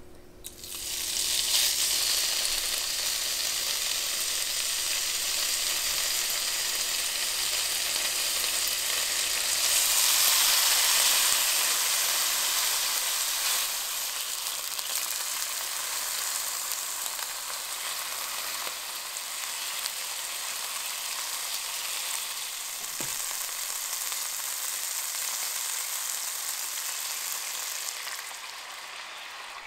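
Thin slices of beef sizzling in the hot pan of an electric hot pot. The sizzle starts about a second in as the first slice goes down, is loudest around ten seconds in, and then holds steady.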